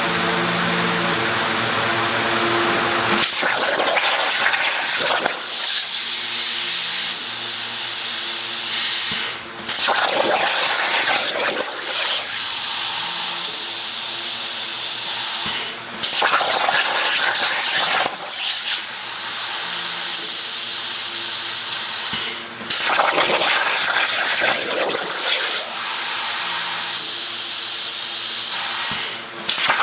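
CNC plasma cutter running: a loud, steady hiss from the torch, getting louder about three seconds in and broken by short gaps about every six to seven seconds, with a faint steady hum beneath.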